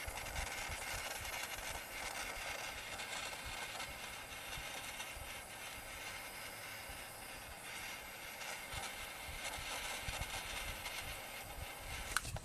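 Handheld gas torch flame hissing steadily while shrinking heat-shrink tubing over spliced wiring. It stops with a sharp click near the end.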